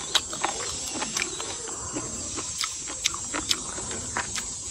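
Close-up chewing of a mouthful of rice noodles, with wet smacking and clicking mouth sounds at irregular intervals, several a second.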